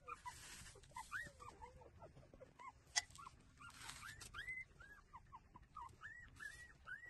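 Newborn puppies squeaking and whimpering while they nurse: many short high calls, each rising and falling, coming faster in the second half. There are stretches of faint rustling and a single sharp click about three seconds in.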